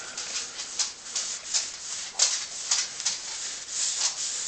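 Irregular rubbing or scrubbing strokes by hand on the lamp, about two a second, with a longer continuous rub near the end.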